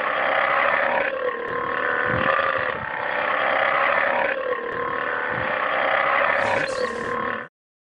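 An animal calling loudly and without a break, the call changing every second or so, cutting off abruptly about seven and a half seconds in.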